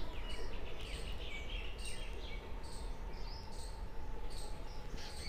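Small birds chirping in short, irregular calls over a steady low outdoor rumble.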